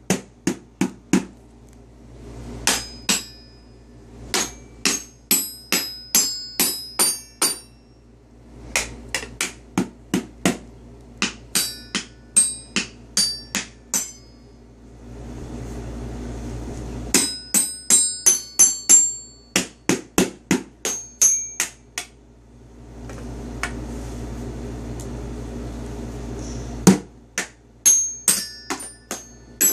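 Toy xylophone's metal bars struck with a single stick in uneven runs of quick taps, each tap ringing briefly, with pauses of a few seconds between the runs.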